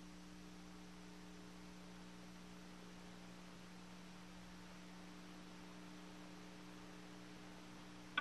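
Faint steady electrical hum with light hiss on the radio audio line: dead air while no station is transmitting. It ends in a single short click.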